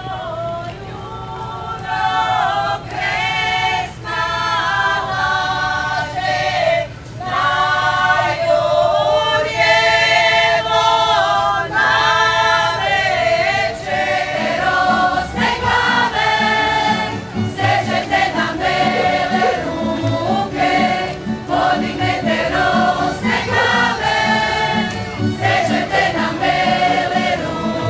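A group of folk dancers singing a Croatian folk song in chorus. About halfway through, a steady low beat joins under the singing.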